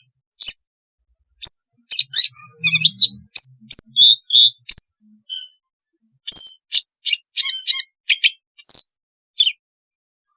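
Long-tailed shrike (cendet) calling: rapid strings of short, sharp, high chirps and whistled notes, in two bursts separated by a pause of about a second and a half near the middle.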